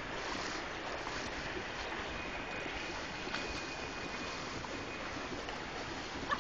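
Steady rush of fountain water splashing into a shallow pool.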